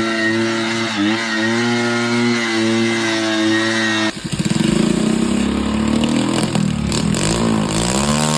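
A steady droning tone, then, from about four seconds in, a rough, fast-pulsing engine sound whose pitch falls and rises, as when an engine is revved.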